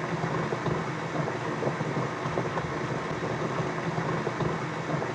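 Simulated water pouring steadily into a tank through an open filling valve: a continuous rushing noise with a low rumble, meaning the valve is open and the tank is filling.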